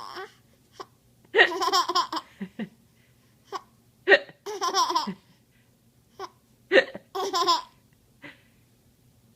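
A baby hiccuping and giggling: short sharp hiccups about every second, mixed in with several bursts of high-pitched giggles.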